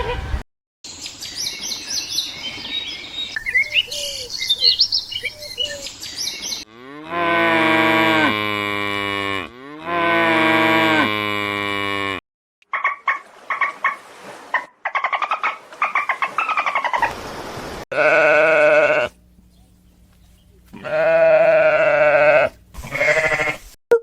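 A run of short farm-animal clips: livestock calling, with two long drawn-out calls that each fall in pitch at the end, followed by a series of shorter calls separated by abrupt cuts.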